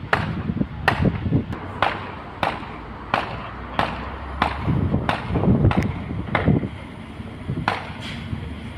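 Footsteps on hard pavement, one sharp step about every two-thirds of a second, over a low, steady rumble.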